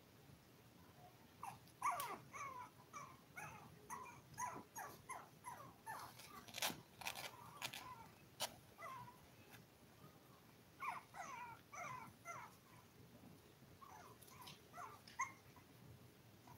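Five-week-old toy poodle puppies whimpering: faint, short, high cries coming in three bouts, with a few sharp clicks among them.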